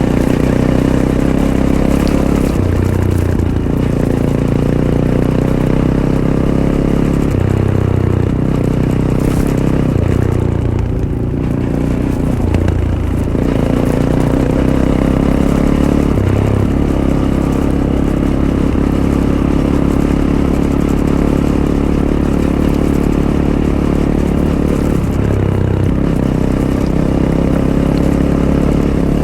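Fantic Caballero 500's single-cylinder engine running through its stock Arrow exhaust while riding a trail. The engine note drops and climbs again several times as the throttle and gears change, most markedly around the middle.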